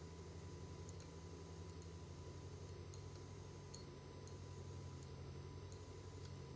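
Faint steady electrical hum with a fast, even buzz underneath and a thin high tone, from the running high-voltage and piezo test setup, with a few faint ticks scattered through it.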